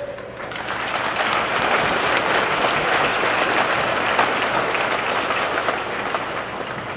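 Crowd applauding in an arena, building over the first second and easing toward the end.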